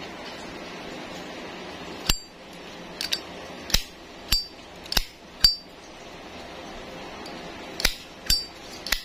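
Zippo Skull Design 48208 satin chrome lighter's lid flicked open and snapped shut again and again: about nine sharp metallic clicks over some seven seconds, several with a short high ringing ping, the lighter's characteristic 'cling'.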